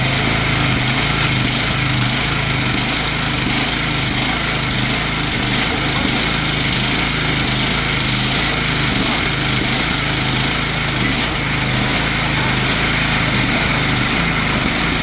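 Riding lawn mower's small engine running steadily, at an even, unbroken level.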